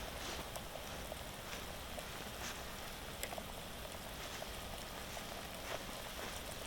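Wood campfire crackling: a steady low hiss broken by scattered, irregular snaps and pops.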